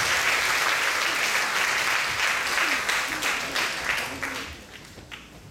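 Large audience applauding, the clapping dying away about four and a half seconds in.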